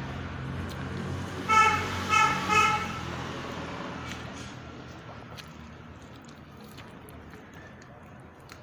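A vehicle horn honks three short times in quick succession, about a second and a half in, over a low steady hum that fades away.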